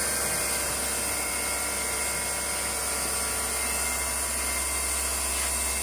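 FANUC CNC drill and tap centre running its program, its spindle and drives giving a steady whine.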